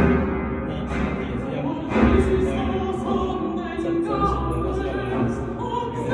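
Classical vocal music with held sung notes, in an operatic style, played back through a hi-fi speaker system in a listening room.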